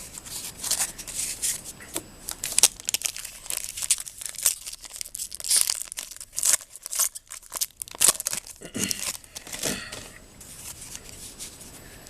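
A baseball card pack's wrapper being torn open and crinkled by hand, a run of sharp crackling and rustling that dies down about ten seconds in.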